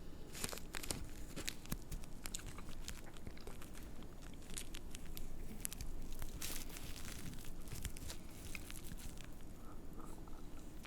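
Cigarette paper and loose tobacco rustling and crackling under the fingers as a cigarette is hand-rolled: irregular small crackles and rustles, with a denser rustle about six and a half seconds in.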